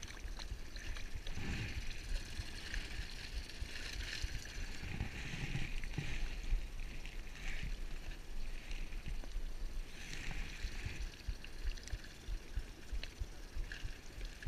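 Small waves lapping and splashing against the side of an inflatable boat, swelling and fading every second or two, over a constant low rumble of wind on the microphone.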